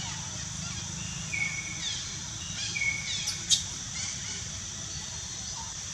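Outdoor ambience with a steady high hiss, broken by several short high chirps from birds between about one and three seconds in. A single sharp click comes about three and a half seconds in.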